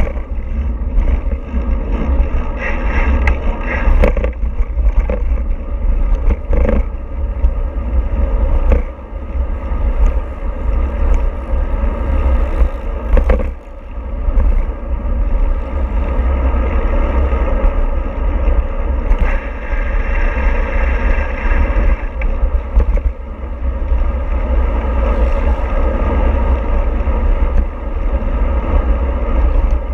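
Steady running noise of a vehicle in motion, with a heavy low rumble and a few short knocks.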